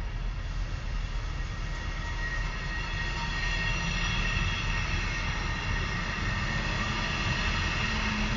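Locomotive-hauled express passenger train pulling out of the station, a steady rumble of wheels on rails. Faint high squealing tones join about three seconds in.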